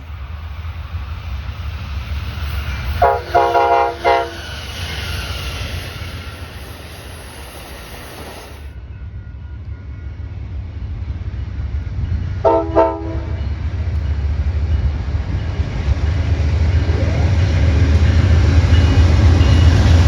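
Locomotive air horn giving a salute of short toots, a quick group about three seconds in and a shorter group about twelve seconds in, over the steady rumble of a passing train that grows louder toward the end.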